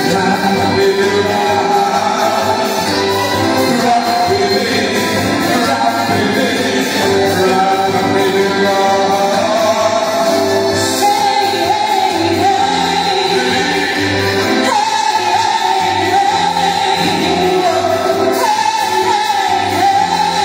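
Live amplified music with a man singing into a handheld microphone over the accompaniment, the melody wavering and held on long notes.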